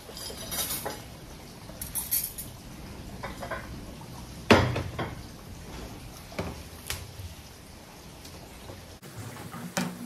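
Ceramic dinner plates being taken off a stack and set out on a glass tabletop with placemats: a run of separate clinks and knocks, the loudest about halfway through.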